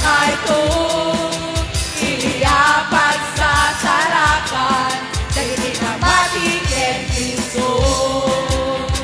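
A live church praise band playing a worship song: a lead vocalist with backing singers over drums, bass, guitars and keyboard, with a steady drum beat.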